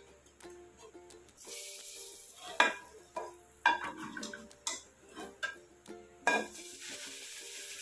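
Steel ladle stirring dal in an aluminium pressure cooker, knocking sharply against the pot several times, with sizzling near the end. Light plucked-string background music plays under it.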